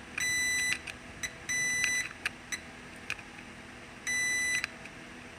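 Digital multimeter beeping in diode/continuity mode: three steady, high half-second beeps, each as the probe touches a point on the T-Con board that is shorted to ground, with faint probe clicks between them.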